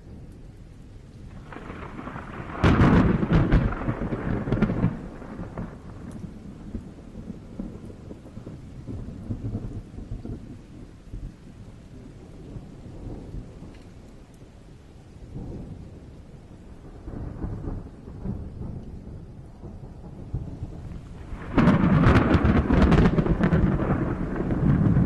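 Thunder: a sudden loud crack rolling into rumble about two and a half seconds in, fainter rumbles in the middle, and a second heavy peal starting near the end and still rolling.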